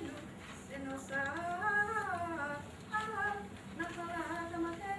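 A single high voice singing a slow melody without accompaniment, holding and gliding between notes in three phrases with short pauses between them.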